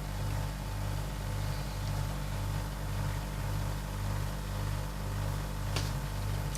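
A steady low hum that swells and dips about twice a second, over a faint hiss, with a short click near the end.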